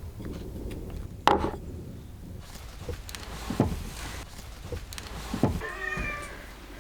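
A cat meows once near the end, a short call falling slightly in pitch. Several sharp knocks come before it; the loudest is about a second in.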